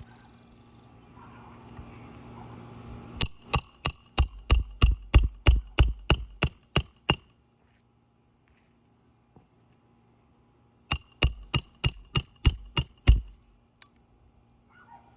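Roofing hammer striking a roof snake to drive nails under an asphalt shingle: two quick runs of sharp, slightly ringing blows, about a dozen over four seconds, then after a pause about eight more over two seconds.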